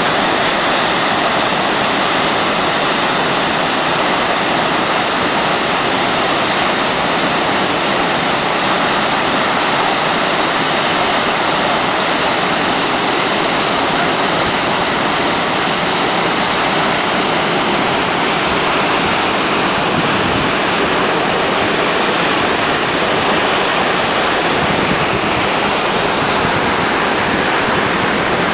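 Waterfall: a steady, loud rush of falling water with no change or breaks.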